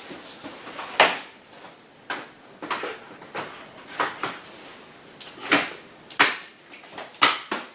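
Cybex Mios stroller seat unit lifted off its frame and clipped back on facing the other way, giving a series of sharp plastic clicks and knocks as it seats and latches into its mounts. The loudest click comes about a second in, and several more come in the second half.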